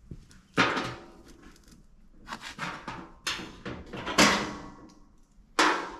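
Vise-grip locking pliers being clamped onto sheet-metal body panels: about five sharp metallic clacks with a brief ring, the loudest about four seconds in.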